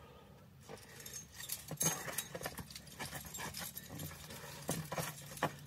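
Irregular clinks, scrapes and knocks of climbing gear and rope being handled during a trad climb, loudest about two seconds in.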